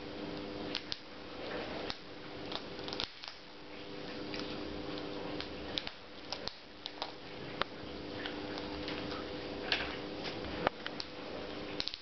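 Blue-fronted amazon parrot nibbling and crunching food that it holds up to its beak in one foot: irregular sharp clicks and cracks of beak on food, over a steady low hum.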